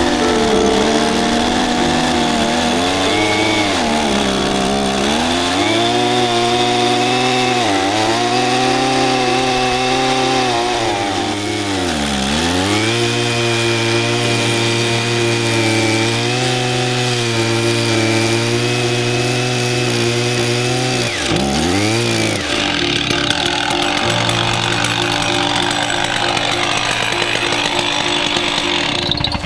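Stihl MS880, a large two-stroke chainsaw, running at full throttle while cutting through a big log. Its pitch sags and recovers several times as the chain loads up in the cut. About three quarters of the way through it drops to a steady lower speed.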